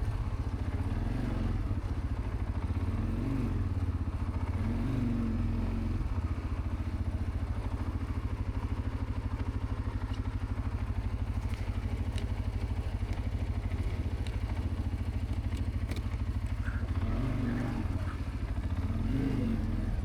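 CFMoto CForce 520L ATV's single-cylinder engine running at low speed with a steady low pulse as it crawls over a steep bit of trail. The engine note lifts briefly twice, a few seconds in and near the end, with a few faint clicks in between.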